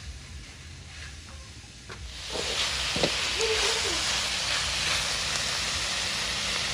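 Kroeung paste and snake meat frying in a hot wok: a loud, steady sizzle swells up about two seconds in, with a sharp clack of the spatula on the wok.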